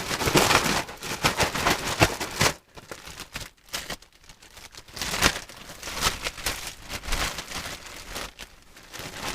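Dry fishing groundbait being poured and mixed by hand into a mash, a rustling, crinkling sound in irregular bursts. It is dense for the first couple of seconds, then thins to scattered rustles and clicks.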